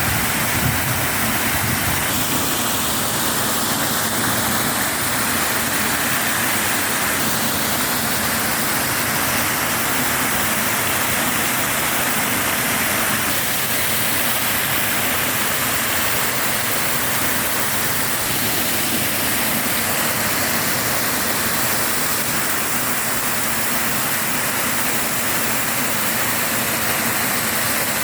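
Hot water fountain gushing and splashing: a steady, unbroken rush of water.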